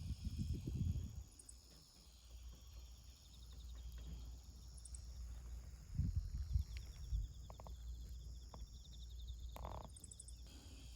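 Faint frogs calling, with a fast high trill in the second half. Low rumbles come at the start and again about six seconds in.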